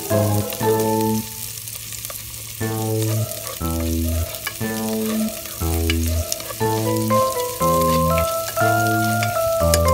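Background music with a bouncing bass line and a stepping melody, the loudest sound throughout. Under it, the quieter sizzle of chopped red onion and garlic frying in oil in a pot as a spatula stirs them.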